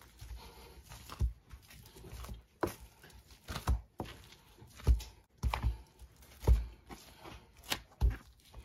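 A bench scraper scraping butter across a cutting board covered in plastic cling wrap, with irregular knocks as the scraper hits the board and crinkling of the cling wrap.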